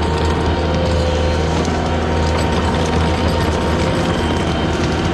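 Diesel engine of a Bobcat T770 compact track loader running steadily under load, a constant drone with a fine mechanical rattle over it.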